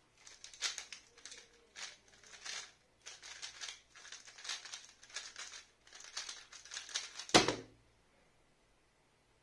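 A 3x3 speed cube's plastic layers being turned rapidly by hand, in quick bursts of clicking and rattling with short pauses between them. The solve ends about seven seconds in with one sharp thump as the cube is set down and the hands come down on the speedcubing timer to stop it.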